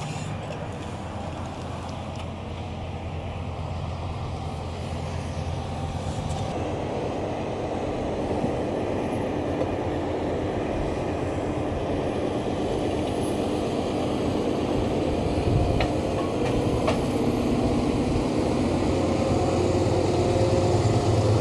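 Fendt 936 Vario tractor's diesel engine running steadily as the tractor turns, with a low hum that grows gradually louder.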